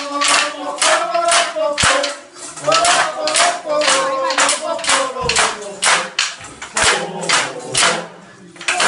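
A group singing a traditional folk song, keeping time with wooden triccheballacche clappers that clack about two to three times a second. The singing fades after about six seconds while the clacking goes on.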